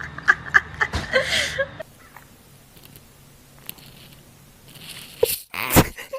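A cat crunching and chewing food, a quick run of crisp clicks over the first couple of seconds. A louder burst of noise comes near the end.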